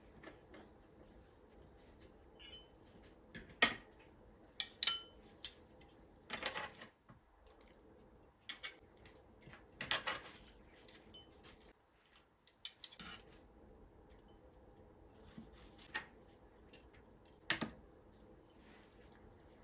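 Kitchen handling sounds: irregular clinks and knocks of dishes and utensils being set down and moved, the sharpest a few seconds in, near the middle and near the end, over a faint steady hum.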